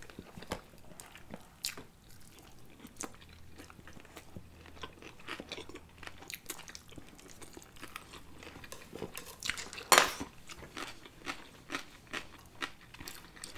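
Two people chewing sushi rolls close to the microphone: a run of short, wet mouth clicks and crunches at an uneven pace, with one much louder crack about ten seconds in.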